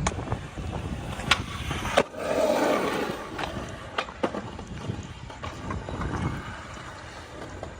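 Skateboard wheels rolling, with sharp clacks of the board, the loudest about two seconds in; the rolling fades after it, and a few lighter clacks follow.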